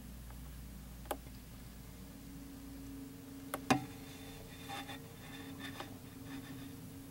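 A few small, sharp clicks over a faint steady hum: one about a second in, a pair at about three and a half seconds with the second the loudest, then a scatter of fainter ticks.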